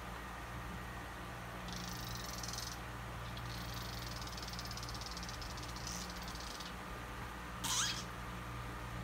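A kitten gives one short meow rising in pitch, the loudest sound, near the end. Earlier there are a few stretches of soft scratchy rustling.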